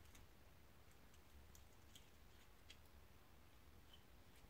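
Near silence, with a few faint, scattered clicks of a small bit screwdriver turning a tiny flathead screw out of a revolver's rear sight.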